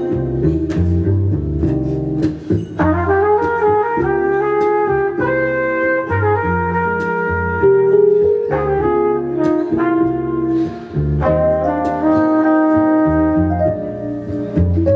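Relaxed live jazz: a flugelhorn plays a warm melody of held notes over a double bass walking below, with piano accompaniment.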